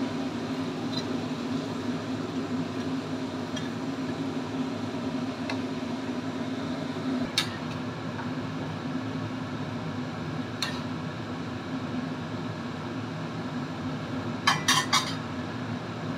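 Metal ladle stirring chicken pieces in broth in a steel wok, clinking against the pan now and then, with a quick run of clinks near the end, over a steady low hum.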